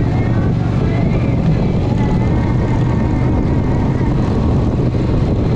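Motor vehicle engine running steadily while driving, a loud constant drone with road noise.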